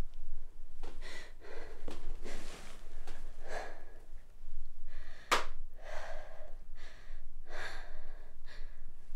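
A frightened woman breathing hard in a string of quick, ragged gasps, with a sudden sharp sound about five seconds in.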